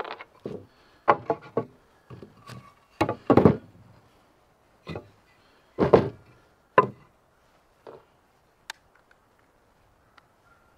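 Cut pieces of 2x4 lumber knocking against each other and the plywood work table as they are handled and set down: an irregular run of sharp wooden knocks, loudest about three and six seconds in, thinning out near the end.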